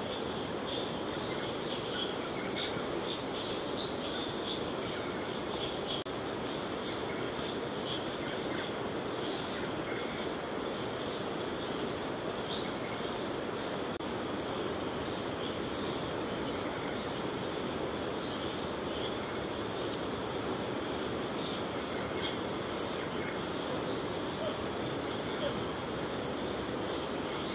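Steady dusk chorus of forest insects: a continuous high trill with a fast pulsing chirp beneath it, over an even low background hiss.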